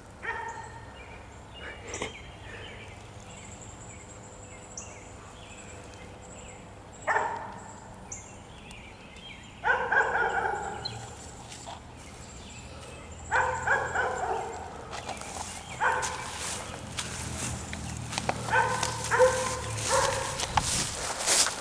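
A dog barking several times, single barks and short runs of barks, starting about seven seconds in after a quiet stretch.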